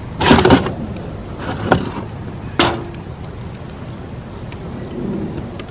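Knocking and scraping of metal being handled over a fire pit: a loud clattering burst, a smaller one, then a sharp metal clank with a short ring about two and a half seconds in. Steady wind noise on the microphone runs underneath.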